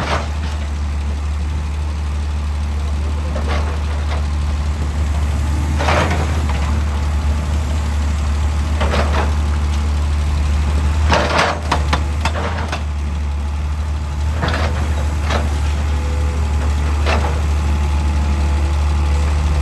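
Hitachi EX200 excavator's diesel engine running steadily, with about ten short, sharp knocks and clanks at irregular intervals, several in quick succession near the middle.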